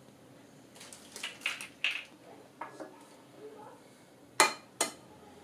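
An egg being cracked: two sharp taps of the shell on a hard edge about half a second apart near the end, after a few lighter clinks of eggs and glassware.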